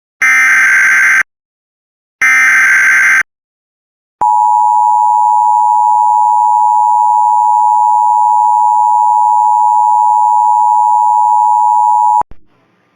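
Emergency Alert System SAME header: two short digital data bursts, each about a second long and a second apart, then after a brief pause a single steady attention tone lasting about eight seconds that cuts off sharply. It marks the start of a new alert, here a tornado warning.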